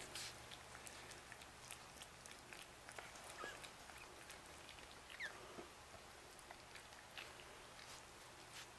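Faint high squeaks from four-day-old Chihuahua puppies, two short ones about three and five seconds in, among soft scattered clicks of the mother licking them.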